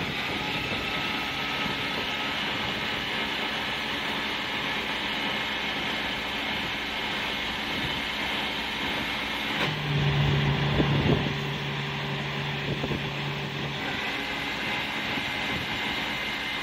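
Diesel engine of a hook lift truck running steadily while the hydraulic hook arm is lowered. A louder low hum comes in about ten seconds in and stops about four seconds later, with a few knocks during it.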